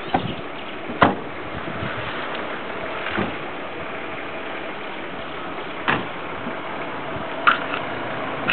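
A vehicle engine idling steadily, with a few short sharp knocks: the loudest about a second in, another near six seconds, and a pair near the end.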